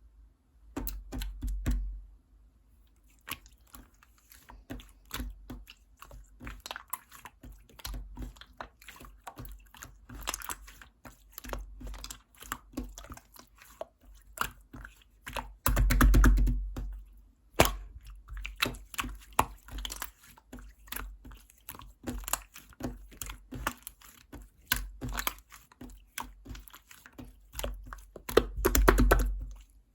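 Slime being squished and poked by hand: a steady stream of small sticky clicks and air-bubble pops, with louder squelching bursts about a second in, about halfway through, and just before the end.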